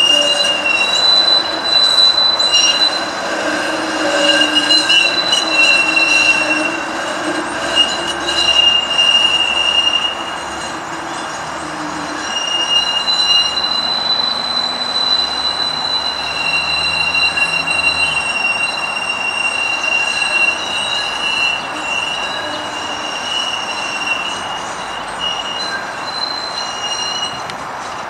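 Flexity Outlook streetcar's wheels squealing as it rounds a tight loop curve: two high steady squealing tones that come and go over the rumble of wheels on the rails. The sound is louder for the first ten seconds or so, then eases.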